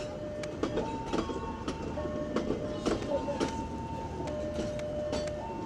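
KA Krakatau passenger train rolling out of the station, its wheels clacking over the rail joints with a low rumble. Over it an electronic two-tone warning alternates steadily between a higher and a lower note, about a second each.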